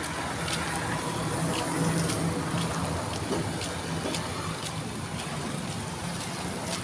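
Roadside street ambience: a steady hiss with a low vehicle engine hum that comes and goes, and light footsteps on pavement about twice a second.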